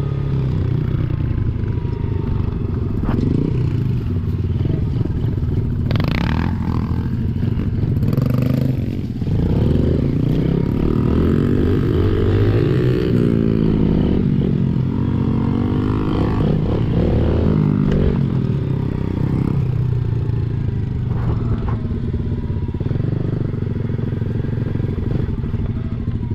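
Yamaha TT-R110 pit bike's small single-cylinder four-stroke engine being ridden, its note rising and falling with the throttle and gear changes, with some clatter from the bike. There is a sharp knock about six seconds in, and the engine holds a steadier note over the last few seconds.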